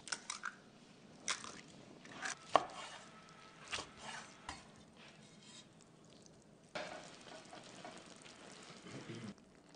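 A knife cutting through cooked skirt steak on a wooden cutting board, with a handful of separate strokes over the first few seconds. Near the end comes a faint steady sizzle of food cooking in a skillet.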